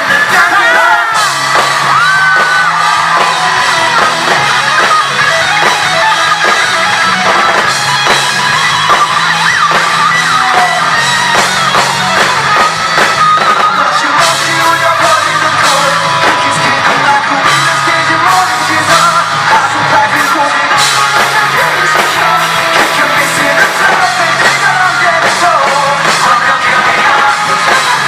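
A live rock band performing with a singer's lead vocal over drums and bass, with yells and whoops mixed in.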